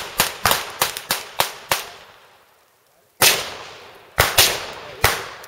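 Kel-Tec PLR-16 5.56 mm semi-automatic pistol being fired rapidly: a quick string of about six shots, each with a fading echo, then a pause of over a second, then another few shots fired quickly.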